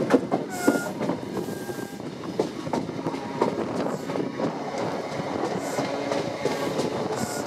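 Passenger train running over pointwork, its wheels clattering in an irregular run of clicks over the switches and rail joints. It is heard from a window beside the carriage, with a couple of brief, faint wheel squeals in the first two seconds.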